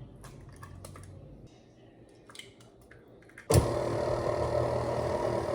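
A few light clicks and taps, then about three and a half seconds in an electric mixer switches on suddenly and runs steadily, beating cake batter.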